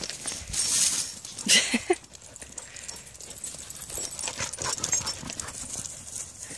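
Dogs running on a dirt and paved trail with a walker's footsteps: irregular patter of paws and steps. In the first two seconds there are two short rushes of noise, from wind or handling on the microphone.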